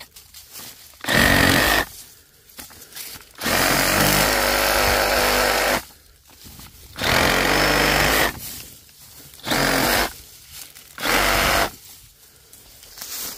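Bauer 20V brushless compact reciprocating saw with a 9-inch Diablo pruning blade running in five short bursts as it cuts through thin saplings and brush, the longest run a little over two seconds in the middle, with rustling of brush between cuts.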